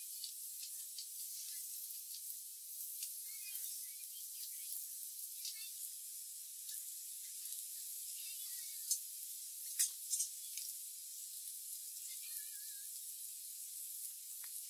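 Faint, steady sizzling of food frying on a camp hotplate, with scattered light clicks and a few sharper ticks a little past the middle.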